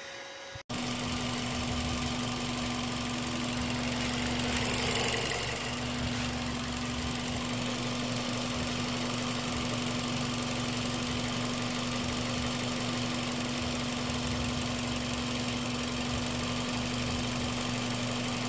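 Toyota Vios 1.5L engine idling steadily, starting abruptly just under a second in, with a brief swell of hiss about four to six seconds in.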